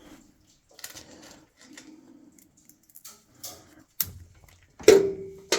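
Small metallic clicks and clinks of a hand tool and metal parts being handled on a furnace. Near the end comes one sharp metal clank that rings briefly, followed by another click.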